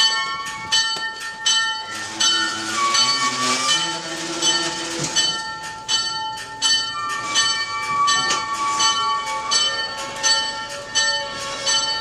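Locomotive bell ringing steadily, about two strokes a second, as the slow-moving train's wheels squeal on the rails at times.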